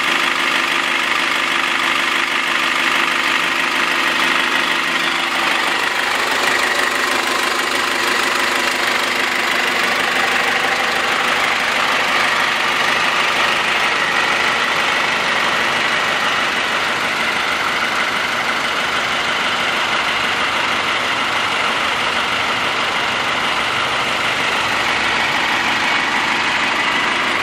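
2013 GAZ Gazelle's 2.8-litre turbocharged inline-four diesel idling steadily, with a diesel clatter.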